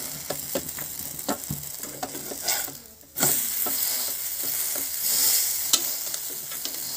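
Semolina pancake sizzling in hot oil in a nonstick frying pan, with light clicks and scrapes as a spatula presses it down against the pan. The sizzle breaks off briefly about three seconds in, then comes back a little louder.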